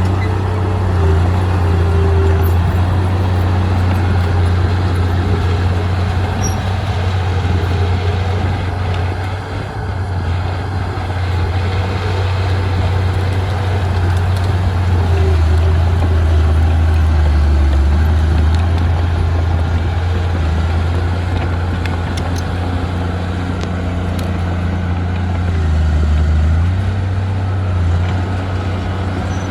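Heavy diesel engine of a bulldozer running steadily under working load, its low drone shifting slightly in pitch now and then, with mechanical clatter above it.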